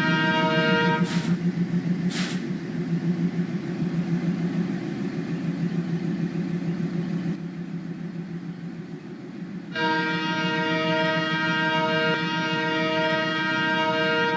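ALCO WDG-3A diesel locomotive's 16-cylinder engine working hard, a steady rhythmic chugging rumble, with two sharp clicks about one and two seconds in. Background music with sustained chord-like tones lies over it at the start and again from about ten seconds in.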